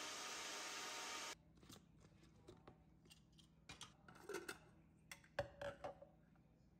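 A steady machine noise cuts off suddenly about a second in. Then come scattered light clicks and knocks as a glass jar and its plastic lid are handled on a counter, with the sharpest click near the end.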